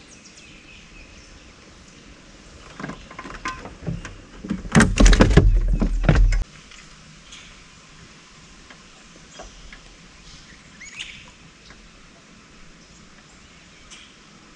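Knocking and rattling of gear handled in a small fishing boat for about two seconds, stopping abruptly, while a freshly caught bluegill is dealt with before the next cast; a few faint bird chirps follow.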